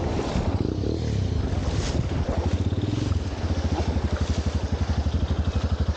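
Motorcycle engine running at idle with an even, rapid put-put of about eight to nine beats a second, settling in about two seconds in, over wind and river noise.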